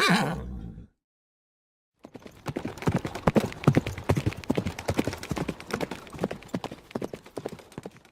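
A horse's whinny ends in a falling, wavering tail, then after about a second of silence horse hooves clip-clop for the last six seconds.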